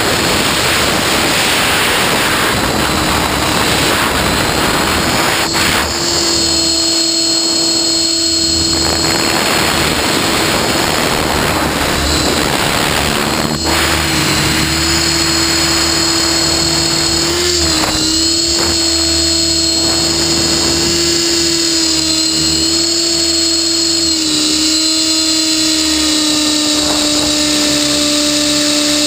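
Align T-REX 600E PRO electric RC helicopter in flight, heard from a camera mounted on the airframe: a steady hum with high-pitched whines from the motor and drivetrain, dipping briefly in pitch a couple of times. Wind rushes on the microphone at times, most in the first few seconds.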